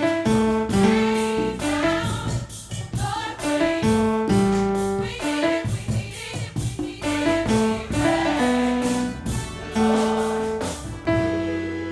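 Gospel choir singing sustained, changing chords over a band with a steady drum beat, settling on one long held chord near the end.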